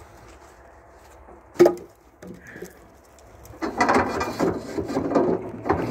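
Beech logs being handled in a metal trailer: one sharp knock of wood about a second and a half in, then a couple of seconds of logs scraping and knocking against each other and the trailer, starting about three and a half seconds in.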